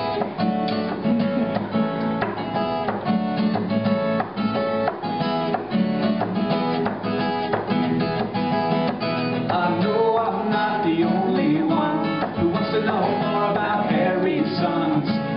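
Acoustic guitar strummed in a steady rhythm, playing the introduction of a song.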